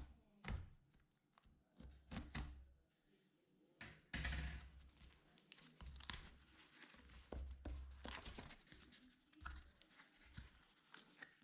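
Packaging being opened and handled: scattered faint knocks and thunks, with a short tearing rustle about four seconds in.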